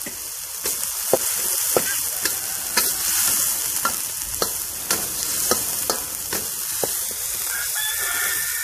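Rendang spice paste frying in oil in a metal wok, sizzling steadily, while a metal spatula stirs and scrapes it against the pan with irregular clicks and knocks.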